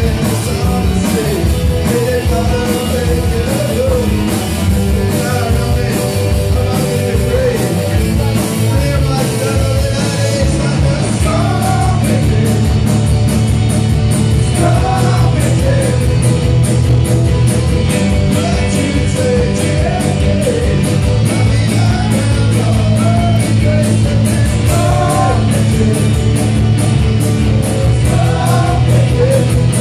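Live rock band playing: electric guitars, bass guitar, keyboard and drums with a steady beat, and a man singing lead.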